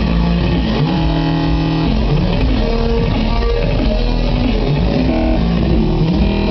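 Loud music with a heavy, steady bass and a line of pitched notes that slide up and down.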